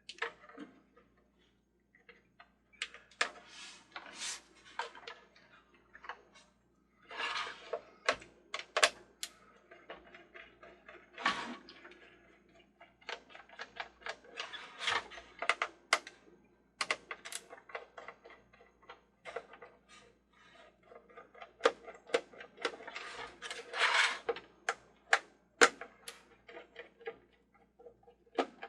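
Irregular sharp clicks and short scrapes of a screwdriver working at screws in the plastic base of a toy carousel, with the base being shifted and handled.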